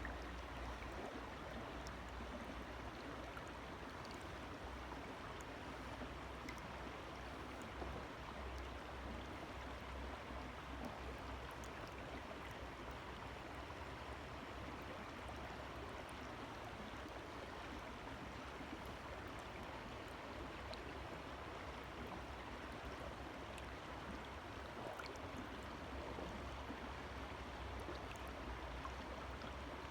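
Forest river flowing: a steady, even rush of water with a low rumble beneath it.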